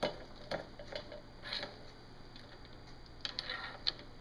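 Faint, scattered metal clicks and taps from a long flathead screwdriver worked as a lever in the holes of a brass wrench tool, turning a large 15/16-inch bolt down onto a threaded stem. There are a few single clicks about a second apart, then a quick run of them about three seconds in.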